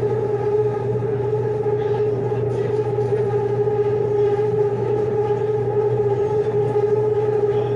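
BTS Skytrain electric train running at steady speed, heard from inside the car: a steady motor whine of several held pitches over a low hum.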